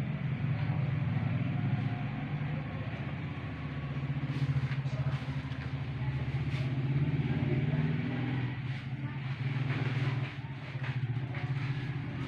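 An engine running steadily, with a few short sharp clicks over it.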